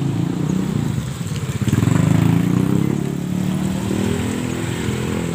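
Small motorcycle engines running close by in slow traffic, loudest about two seconds in as one passes, with the engine pitch rising after that as it speeds up.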